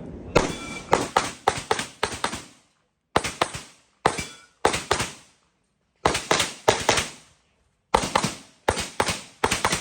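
Rapid handgun shots fired in quick strings of several shots each, with short pauses between strings, as in a practical-shooting (IPSC) course of fire with an Open-division pistol.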